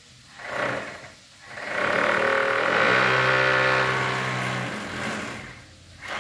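Electric hammer drill boring into a masonry wall. There is a short burst, then a steady run of about four seconds with a buzzing pitched drone, then a brief blip near the end.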